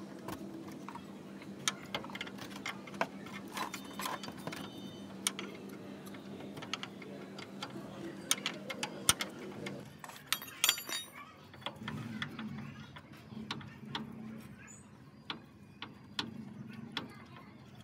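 Steel open-end spanners clicking and clinking against the rear shock absorber's lower mounting bolt and nut as they are worked loose, in short irregular ticks. About ten seconds in comes a brighter metallic clink that rings briefly. A low steady hum sits underneath for the first ten seconds.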